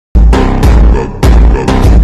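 Soundtrack music with a heavy bass and a strong, regular beat, starting suddenly just after the start.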